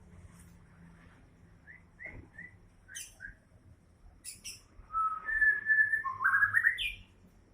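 White-rumped shama singing: a few scattered short chirps and sharp notes, then near the end a louder whistled phrase of held clear notes that rises at its close.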